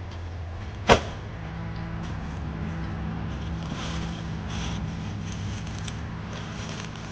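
Rustling and scraping of a cloth sack being handled and set down on grassy ground, over a steady low hum. A single sharp click about a second in is the loudest sound.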